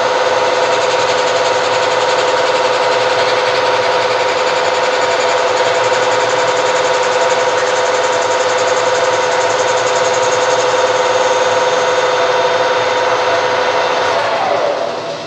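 Lathe running steadily with a high whine while turning down a plastic rod; near the end it is switched off and the whine falls in pitch as the spindle spins down.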